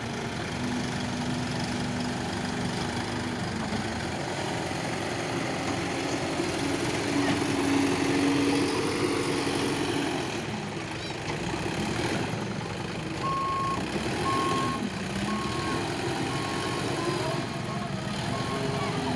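Diesel engine of a JCB earth-moving machine running and revving, its pitch rising and falling and loudest around the middle. About two-thirds of the way in, a reversing alarm starts beeping steadily, a little more than once a second.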